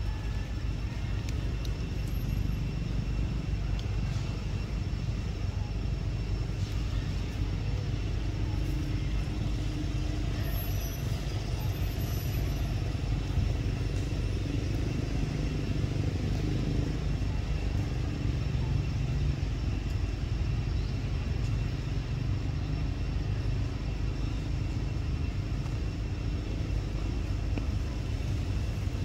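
Steady low outdoor rumble, with two faint steady high tones above it.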